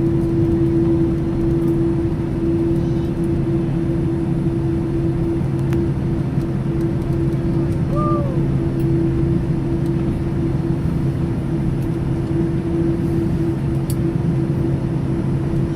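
Boeing 787 jet engines running steadily: a constant loud rumble with a steady low hum that does not rise or fall.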